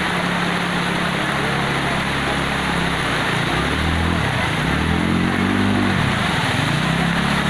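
Floodwater rushing fast and steadily through a street, with motorcycle engines running in it. In the middle, one motorcycle's engine rises and falls in pitch as it is ridden through the water.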